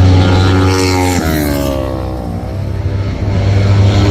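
Motorcycle engine running hard: its pitch drops sharply about a second in, then rises again as it revs back up.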